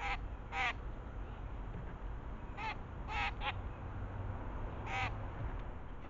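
Crows calling: six short, harsh caws, two near the start, three close together around the middle, and one near the end.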